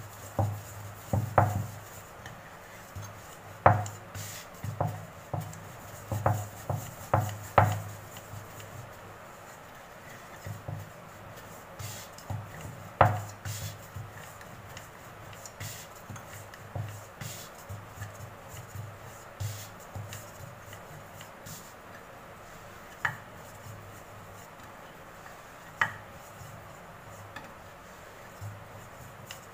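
Rolling pin rolling dough thin on a round wooden rolling board: repeated knocks and thumps as the pin rocks over the dough and the board shifts. The knocks come thick and fast for the first several seconds, then grow sparser, with an occasional sharper click.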